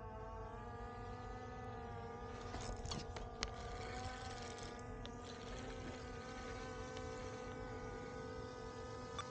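Quadcopter drone propellers whining steadily, the pitch drifting slightly as it hovers and moves. A few sharp clicks come about three seconds in.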